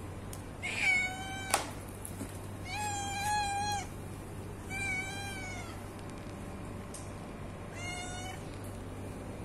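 Hungry domestic cat meowing four times, each call under a second long. A single sharp click comes just after the first meow, over a low steady hum.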